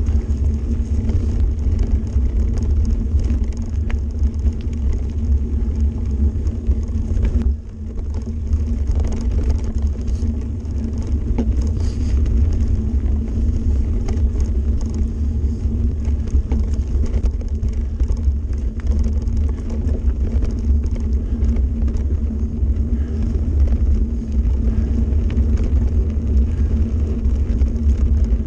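Mountain bike rolling fast over a gravel and stony forest track, heard through a camera mounted on the bike: a loud, steady low rumble of wind buffeting and tyre noise, with frequent small rattles and clicks from stones and the bike's frame. The rumble dips briefly about seven and a half seconds in.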